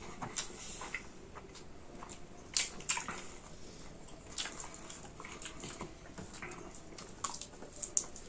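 Wet chewing and lip-smacking of people eating chicken curry with rice: a scatter of short, irregular smacks and clicks.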